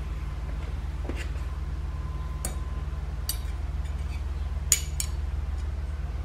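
A few light metal clinks and clicks as steel parts of a 47RE direct clutch pack are handled and the spring retainer is set down onto the return springs in the clutch drum, the sharpest one about three-quarters of the way in. A steady low hum runs underneath.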